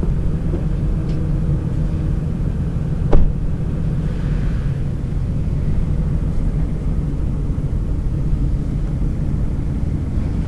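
A van's engine running steadily with a low hum. A single sharp thump about three seconds in.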